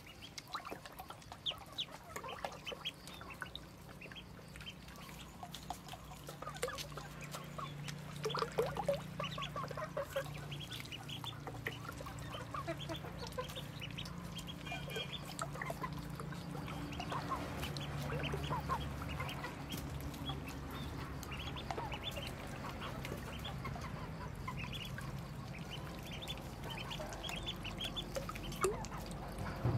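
A brood of ducklings peeping: many short, high cheeps overlapping throughout, over a steady low hum that comes in about six seconds in.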